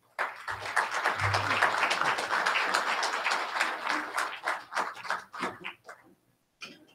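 Audience applauding. It starts suddenly, stays full for about four seconds, then thins to a few scattered claps and dies away near the end.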